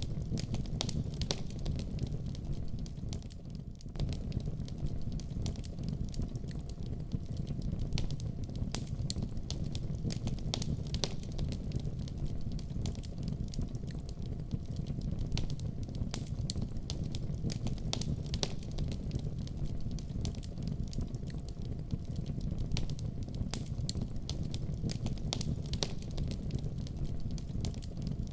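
Wood fire burning in a fireplace: a steady low rumble of flames with irregular sharp crackles and pops throughout.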